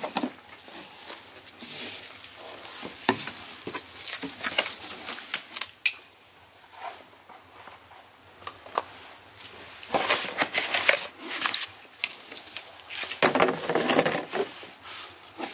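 Cardboard box being opened and unpacked by hand: flaps pulled open and cardboard packing scraping and rustling in irregular bursts, loudest about two-thirds of the way through and again near the end.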